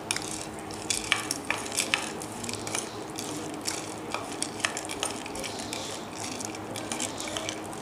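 Metal spoon stirring peanuts, chopped onion and herbs on a plate, with irregular clinks and scrapes of the spoon against the plate.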